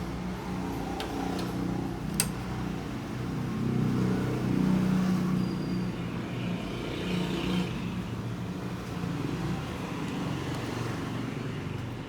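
A low motor hum with several steady tones, swelling about four to five seconds in and easing off, with a sharp click just after two seconds.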